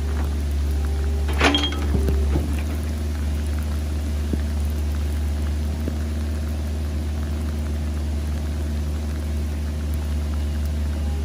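Excavator engine running steadily with a low hum as the machine works on a steep dirt slope. There is a sharp knock about a second and a half in.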